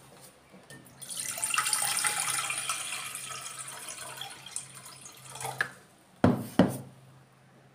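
Water poured from a container into an empty stainless steel pot, splashing from about a second in and tapering off after about five seconds. Two sharp knocks follow near the end.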